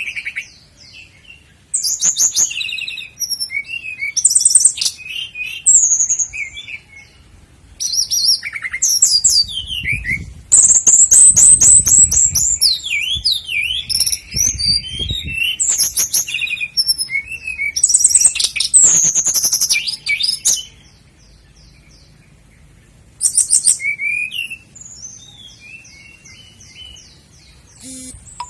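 Common nightingale singing a string of separate phrases: fast rattling trills, rapid runs of repeated notes and sweeping whistles, with short pauses between phrases and a longer lull about three-quarters of the way through.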